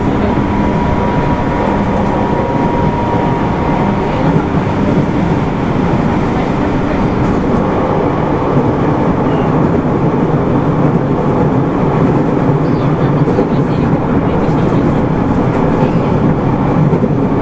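JR East 205-600 series electric train running at speed, heard from inside the car: a steady, loud rolling rumble of wheels and running gear. A faint high tone sits over it for the first few seconds.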